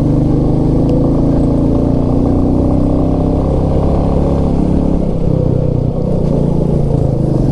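Royal Enfield motorcycle engine running steadily under way on a winding hill road, its note easing slightly about five seconds in and then steadying.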